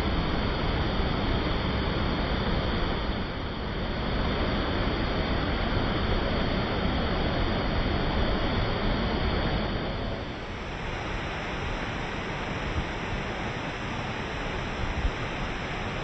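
Furebergfossen, a steep, high-volume waterfall, rushing down over rock: a dense, steady noise of falling water. It becomes a little quieter from about ten seconds in.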